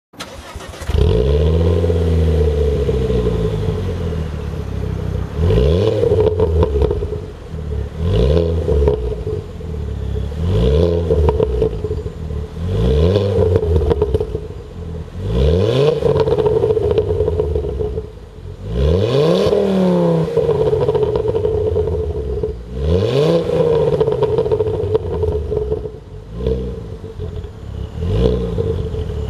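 2007 Ford Focus ST's turbocharged 2.5-litre five-cylinder engine starts about a second in and settles to idle. It is then revved in about nine short throttle blips, the pitch rising and falling back each time, heard through an exhaust whose resonator has been replaced by a straight tube welded in place.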